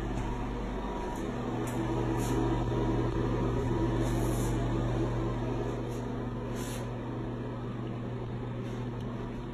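Steady electrical hum of a running fan motor, with a few faint short scuffs over it.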